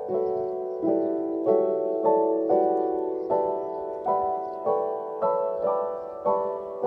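Background piano music: a slow, even melody of struck notes, about two a second, each fading, over a held lower note.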